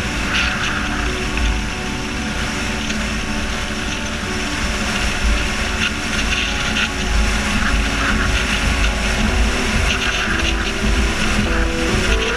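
Steady road and wind rumble of a car driving at highway speed, with music playing over it.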